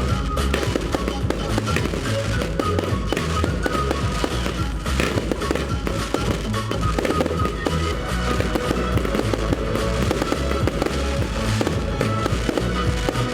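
Fireworks bursting in rapid, near-continuous succession, bangs and crackling, over loud music with a heavy bass.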